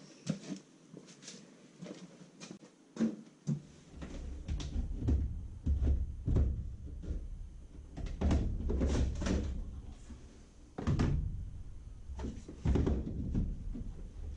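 Irregular knocks and clunks, with a low rumble setting in about three and a half seconds in.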